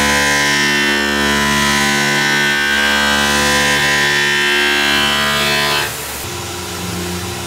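Distorted electric-guitar background music that stops suddenly about six seconds in, leaving the steady running of a Tormach CNC mill cutting aluminum.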